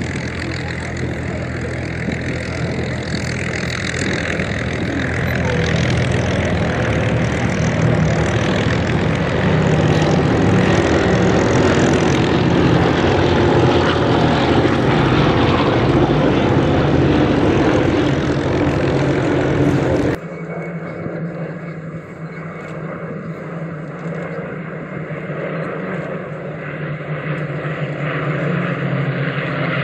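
Radial piston engines of a B-17 Flying Fortress and two Douglas C-47 Dakotas droning past in formation, growing louder as they pass overhead. About two-thirds of the way in the sound cuts suddenly to a quieter, steady propeller-engine drone that slowly builds again.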